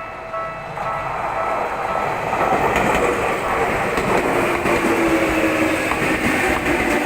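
A Tokyu Oimachi Line electric train running past the level crossing, its noise building over the first two seconds and then staying steady, with faint clicks of wheels over rail joints. From about four seconds in, a whine comes through that falls slightly in pitch. The crossing's warning bell, ringing about twice a second, is heard only in the first second before the train covers it.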